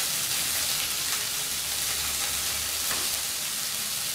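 Onion and tomato wedges frying in oil in a skillet, a steady sizzle.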